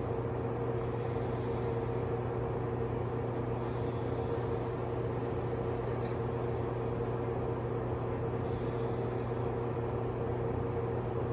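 A steady mechanical hum with a low drone and a few fixed tones, unchanging throughout. Faint soft breaths come and go over it every few seconds.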